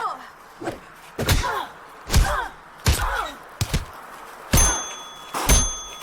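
Fight-scene sound effects: a run of hard hits, about one a second. The last two strikes ring like struck metal.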